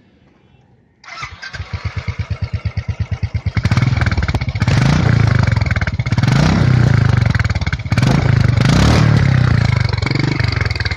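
Royal Enfield Continental GT motorcycle engine starting about a second in and idling with slow, evenly spaced exhaust pulses, then revved several times from about three and a half seconds in before dropping back to idle near the end.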